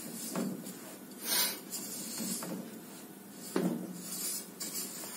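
Silicone spatula stirring and scraping a thick mix of grated coconut, sugar and condensed milk around a metal pot, in irregular strokes with an occasional knock against the pot.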